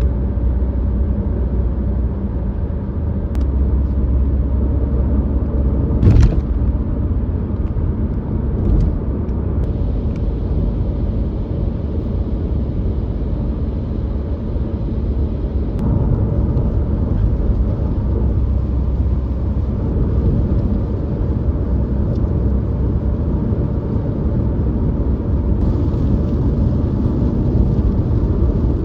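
A car driving on the interstate: steady low rumble of tyres and engine, with a brief sharp knock about six seconds in.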